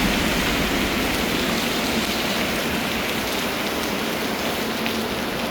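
Heavy rain pouring down: a steady, dense hiss of falling water.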